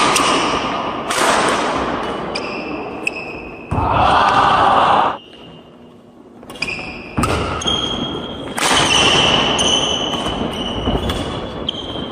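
Badminton rally: rackets striking the shuttlecock in sharp hits, with court shoes squeaking on the wooden floor.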